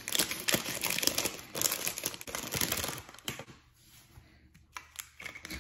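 Thin plastic packaging crinkling as it is cut open with scissors and handled to free a small plastic spray bottle, dense for about three seconds, then a few separate light clicks and taps.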